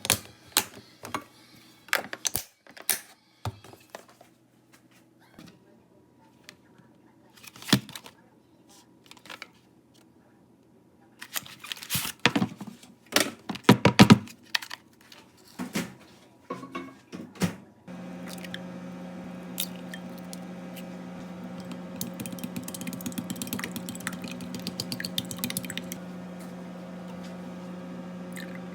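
Kitchen handling sounds: scattered clicks, knocks and light clatter of dishes and packaging. About two-thirds of the way in, a steady machine hum starts and carries on with a light crackle over it.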